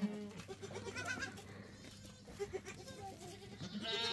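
A herd of goats bleating, many calls overlapping at different pitches, with a louder high-pitched bleat near the end.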